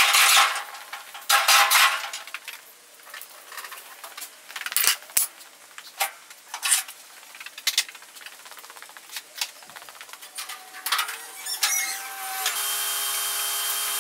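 Steel roll-cage tubing clanking and clinking as the half cage is picked up and handled, then scraping along a concrete floor with a steady ringing scrape near the end.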